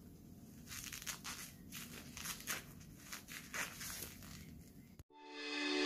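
Faint rustling and crinkling handling noises, a string of short scrapes and crackles. About five seconds in they cut off, and music starts fading in.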